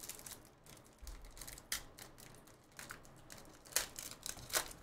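A foil trading-card pack being torn open by hand, its wrapper crinkling in a run of sharp crackles. The loudest crackles come near the middle and twice near the end.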